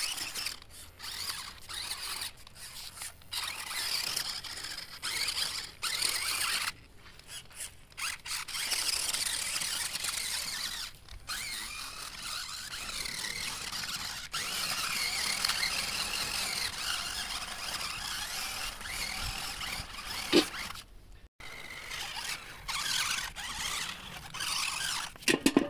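Small electric motors and gears of a toy RC rock crawler whining in on-and-off bursts as it is driven through shallow water, with splashing. Two sharp knocks near the end.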